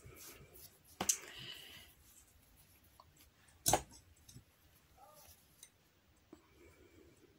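Scissors cutting a length of yarn: a sharp snip about three and a half seconds in, with a softer click about a second in and quiet handling of yarn between.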